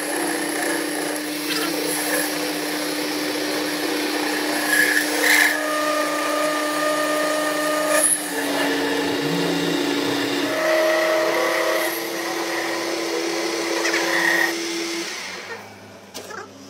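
Metal lathe turning a steel bar under a cutting tool. It runs with a steady whine and cutting noise that steps in pitch a couple of times, then falls away near the end.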